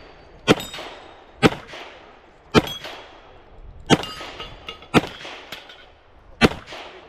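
Modified S&W 686 revolver, double action only, fired six times at about one shot a second; several shots are followed by the ringing ding of a steel plate being hit.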